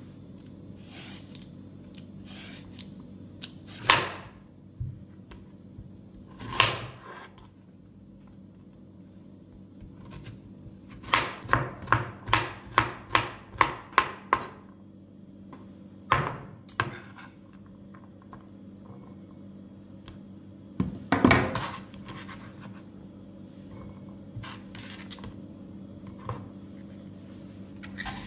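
A zucchini being peeled and diced with a chef's knife on a plastic cutting board: scattered scrapes and knocks, then a quick run of about eight knife chops on the board near the middle, a little over two a second. A low steady hum sits underneath.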